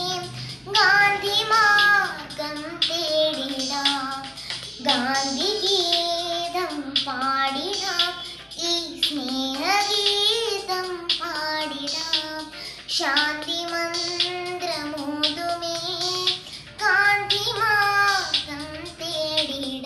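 Young girl singing solo, a melody in phrases with held notes that bend in pitch.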